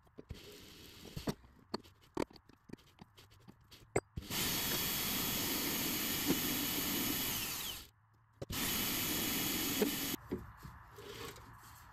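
Light metal clicks and taps. Then an electric power tool motor runs steadily for about four seconds, stops for half a second, and runs again for under two seconds.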